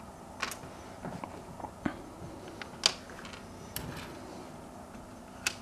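Small sharp clicks and taps, about six spread over a few seconds, as machine screws are dropped into the holes of a hoverboard's plastic shell and handled with the fingers.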